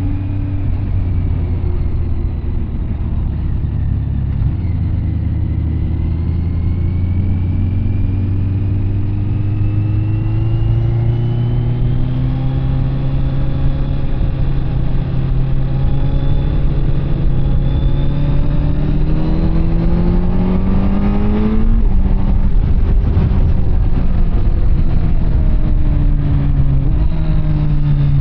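Kawasaki Z900 SE's inline-four engine through an SC Project CR-T carbon exhaust, pulling under load with its pitch rising steadily for much of the time. About 22 seconds in the throttle comes off suddenly, and the pitch falls as the bike slows.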